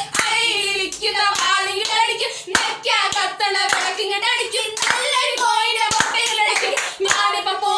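A woman singing a song unaccompanied, with hand claps keeping time about once or twice a second.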